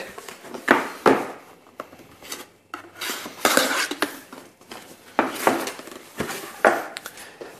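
A cardboard box being handled and opened on a stone countertop: irregular knocks and scrapes as it is lifted, turned and set down, and its lid is opened.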